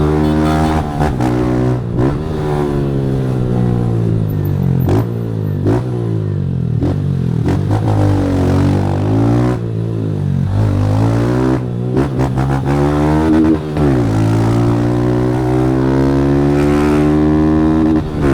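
Motorcycle with a Fortuna Trioval aftermarket exhaust accelerating hard through the gears: the engine pitch climbs and then drops sharply at each shift. It eases off and winds down around the middle, then pulls hard again in a long climb near the end.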